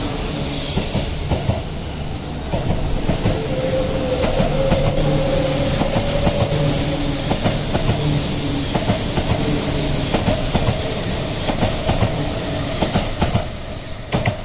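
A sixteen-car E4 series Max double-decker Shinkansen pulls out past the platform, its wheels clattering rapidly over the track, with a steady whine mixed in. The sound drops in the last second as the tail car passes and draws away.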